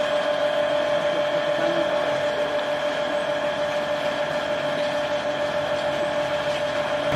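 A steady mechanical hum with a constant mid-pitched whine and an even hiss beneath it, unchanging throughout.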